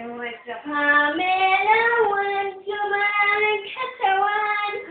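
A young child singing in long held notes that step up and down in pitch, with two short breaks for breath.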